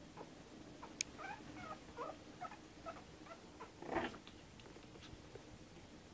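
Month-old Shih Tzu puppies giving short, high squeaks and whimpers as they wrestle, with a louder cry about four seconds in. A sharp click comes about a second in.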